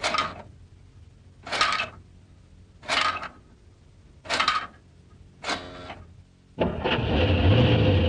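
Animated steam-engine sound effects: five short puffs of steam about a second and a half apart, then about six and a half seconds in, the loud steady run of engines on the rails with a low rumble.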